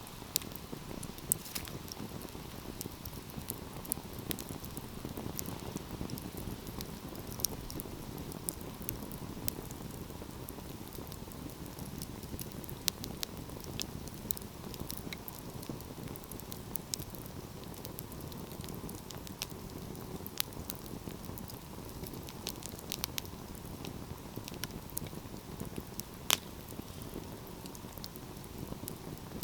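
Wood fire crackling: a steady low rush of burning with scattered sharp pops and snaps, one louder pop near the end.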